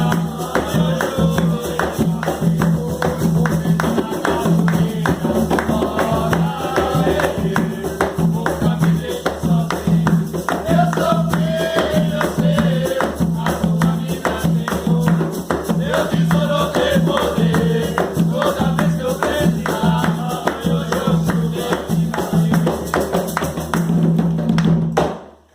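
Umbanda ponto sung by a group of voices over fast, steady hand-drum and rattle percussion, fading out quickly near the end.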